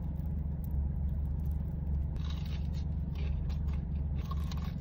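Biting and chewing a crispy-breaded fried chicken wing: several short crunches from about two seconds in and again near the end, over a steady low hum from the car.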